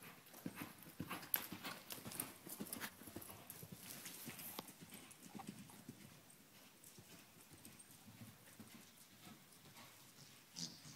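Horse's hoofbeats on arena dirt as it is ridden around the ring, a run of soft thuds that are louder in the first half and fainter later on.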